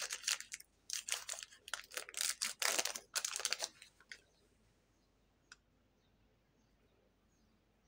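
Plastic wrapper of a mini Milky Way bar crinkling and tearing in quick bursts as it is pulled open by hand, stopping about four seconds in; after that it is quiet apart from one faint tick.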